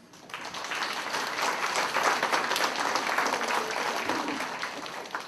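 An audience clapping, starting about a third of a second in, loudest through the middle and tapering off near the end.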